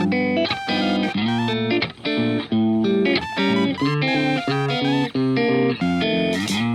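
Background music: a guitar-led instrumental with quick plucked notes over a bass line.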